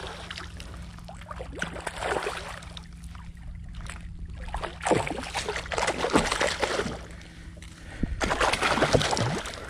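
Water splashing and sloshing at the side of a kayak as a hooked trout is landed, in irregular bursts that are loudest about halfway through and again near the end.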